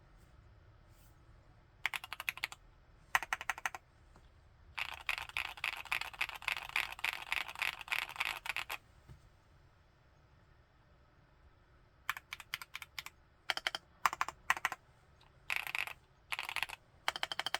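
Typing on a Createkeebs Luminkey75 mechanical keyboard with Gateron Baby Raccoon linear switches. It comes in short bursts of keystrokes, then a fast run of about four seconds. After a pause of about three seconds come more short bursts.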